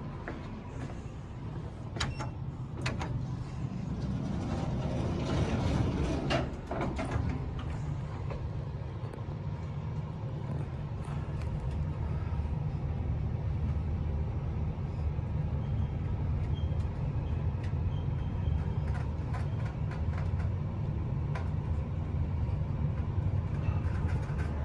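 Otis service lift with two-speed doors: a couple of clicks and the doors sliding shut in the first few seconds, then the car travelling up with a steady low hum.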